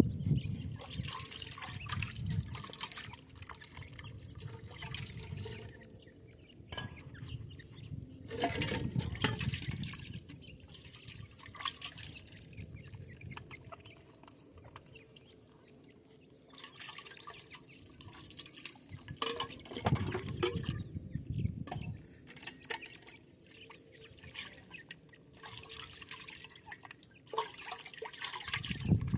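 Partridge chicks drinking: many quick wet clicks and drips as small beaks tap and dip into water, with a few low rumbles now and then.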